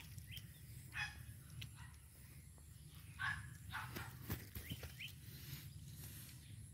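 Scattered rustles and light knocks from a mesh net trap being handled, over a low steady rumble.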